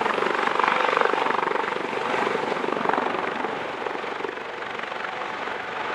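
US Coast Guard HH-65 Dolphin helicopter lifting off: the twin-turbine engines and main rotor run at full power, with steady tones over the noise. It grows a little quieter in the second half as it climbs away.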